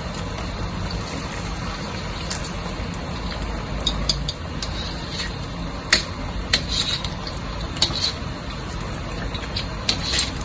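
Batter-coated nian gao deep-frying in hot oil in a wok: a steady sizzle, with scattered light clicks.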